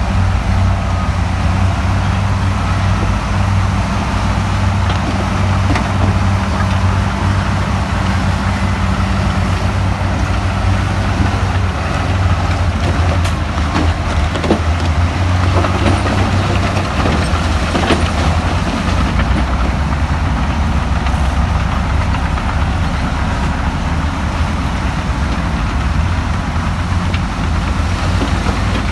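Heavy diesel engine of earthmoving machinery running steadily with a low drone, and a few light knocks about halfway through.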